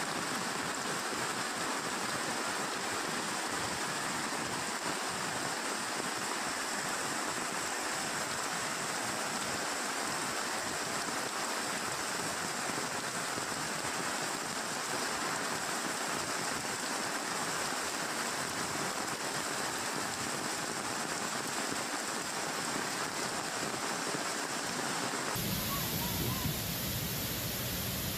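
Heavy rain and rushing floodwater, a steady hiss. About 25 seconds in it switches abruptly to the fuller roar of a swollen muddy torrent pouring down, with more low rumble.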